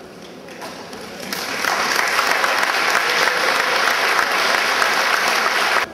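Audience applause that builds over the first two seconds into steady, dense clapping, then stops abruptly near the end.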